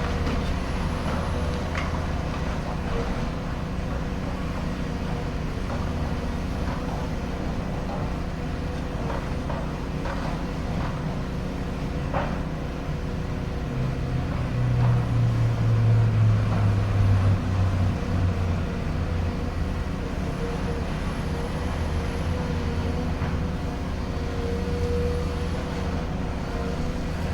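Hydraulic excavator's diesel engine running steadily. It works harder for a few seconds about halfway through, then settles back, with a few light knocks of debris.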